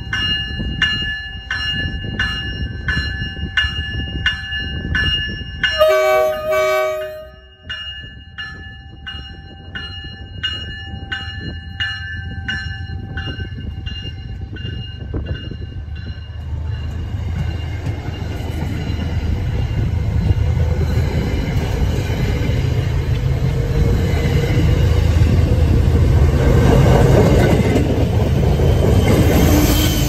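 Commuter train cab car's bell ringing about twice a second, with one short horn blast about six seconds in. Then the bi-level coaches rumble past close by with wheel and rail noise, growing louder toward the end as the diesel locomotive at the rear approaches.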